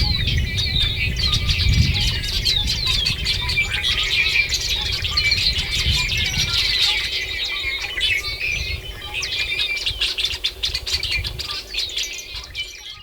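Many small birds chirping and twittering at once in a dense chorus, over a low rumble that dies away about halfway through. The sound fades and cuts off right at the end.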